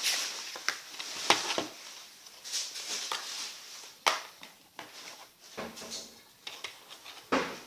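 A plastic disc case being handled and opened: rustling with scattered sharp clicks and knocks, the strongest a knock near the end.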